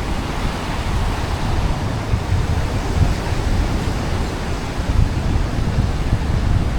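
Waves breaking and washing on a beach, with a strong breeze buffeting the microphone in a steady low rumble.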